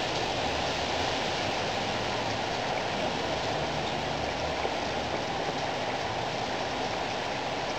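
Thunderstorm rain falling steadily, an even hiss with no breaks.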